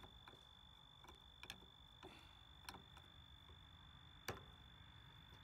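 Near silence with a few faint, irregular clicks, the loudest about four seconds in, over a faint steady high whine.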